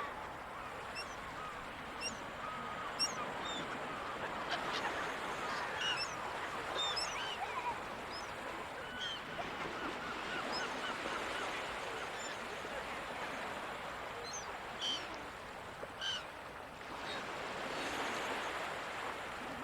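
A flock of gulls calling: many short overlapping cries, with a few louder single calls standing out, over a steady wash of surf.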